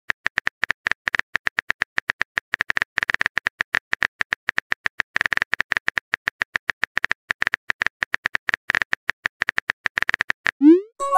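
Keyboard typing sound effect: rapid, irregular clicks that stop near the end, followed by a rising swoosh and a short chime as the message is sent.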